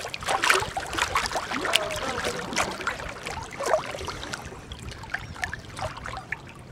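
Lake water sloshing and splashing around a person wading through waist-deep water, in many small irregular splashes that grow quieter and sparser near the end.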